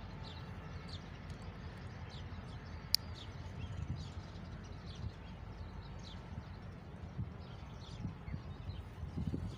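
Small birds chirping now and then over a low, steady rumble, with one sharp click about three seconds in.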